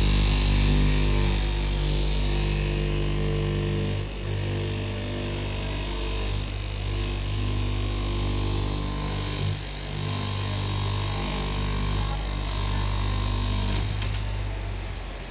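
Electric straight-knife cloth cutting machine running with a steady hum as its vertical blade cuts through a stack of denim layers; the hum drops away near the end.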